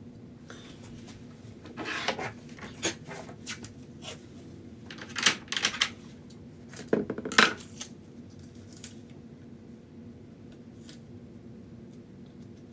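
Metal tools and parts clinking and clattering as they are handled, in three short bunches, some strikes ringing briefly, over a steady low hum.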